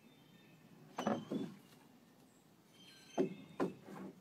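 A long wooden stick held crosswise in a dog's mouth knocking against the wooden railings of a footbridge: a hollow knock about a second in, then three more in quick succession near the end.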